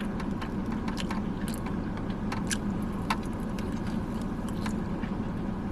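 Close-up eating sounds of someone chewing and biting into chicken wings: scattered short wet clicks and smacks, over the steady low hum of a car cabin.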